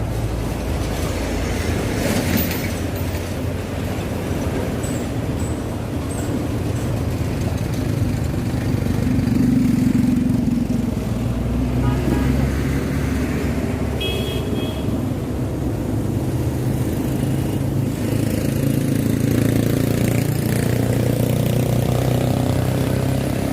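Motorbike engine running steadily while under way, its low hum shifting a little in pitch and level partway through.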